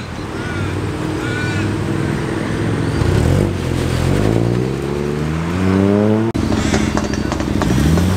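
Ford Fiesta ST's turbocharged three-cylinder engine running low, then revving up as the hatchback accelerates away, its pitch climbing steadily for about three seconds. Near the end, a second car's engine climbs in pitch as it pulls off.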